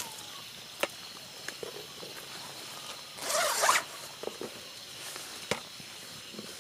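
A digging tool scraping once through soil: a single short rasp about three seconds in, with a few faint ticks and knocks around it.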